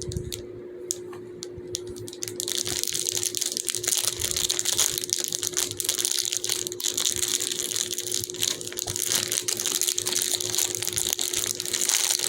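Thin plastic packaging crinkling and crackling as it is handled, sparse at first and then continuous from about two seconds in.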